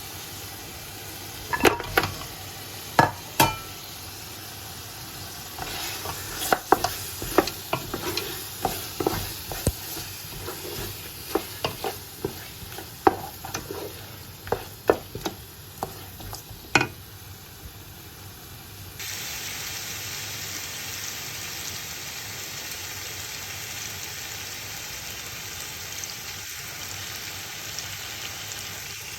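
A spoon stirring and knocking against a cooking pot over sizzling food, with many sharp clanks. About two-thirds of the way in the stirring stops, leaving only a steady, slightly louder sizzle of frying.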